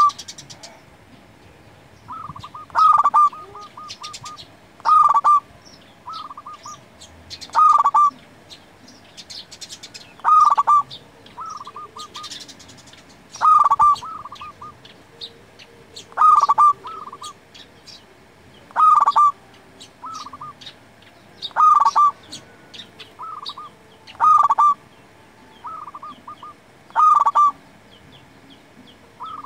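Zebra dove (perkutut, a local Indonesian strain) cooing: it repeats its song phrase about every two and a half to three seconds, about eleven times. Each phrase is a short run of quick cooing notes. Other small birds chirp faintly in the background.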